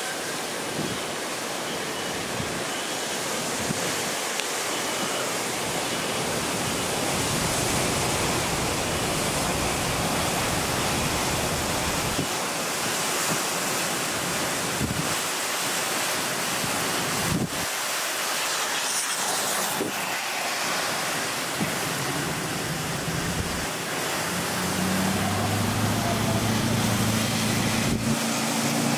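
Hurricane wind and torrential rain make a steady, heavy rushing noise, with wind buffeting the microphone. Near the end the low, steady hum of a vehicle engine comes in underneath.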